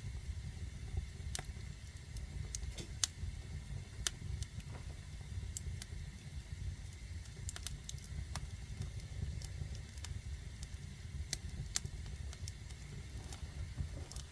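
Wood fire burning in a fireplace: a steady low rumble of the flames with scattered sharp crackles and pops, the loudest about three seconds in.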